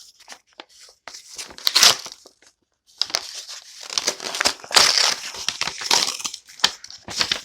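Packaging crinkling and tearing in irregular bursts as a parcel is opened by hand, with a short pause about two seconds in.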